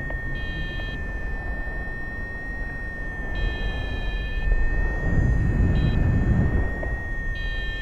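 Wind buffeting the microphone as a low rumble that swells for a second or two just past the middle, over a steady high thin tone and a few short higher tones.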